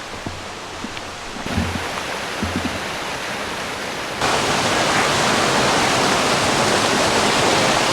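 Fast-moving river water rushing over rocks as a steady hiss-like noise. It grows louder about a second and a half in, then suddenly much louder about four seconds in. A few soft low thumps sound in the first few seconds.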